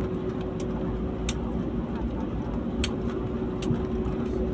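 Steady cabin noise inside an airliner rolling slowly on the ground after landing: a low rumble with a steady hum, and three sharp clicks or rattles spread through it.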